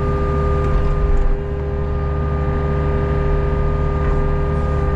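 Hitachi ZX48U mini excavator's diesel engine running steadily under hydraulic load as the boom and bucket swing, with a steady whine over the engine note. The low engine note eases slightly about a second in.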